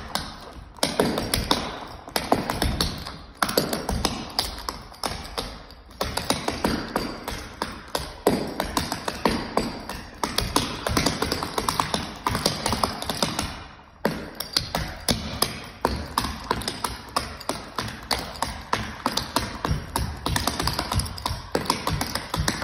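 Clogging taps on shoes striking a hardwood floor in fast, rhythmic clusters of sharp metallic clicks, with a few brief pauses, over background music.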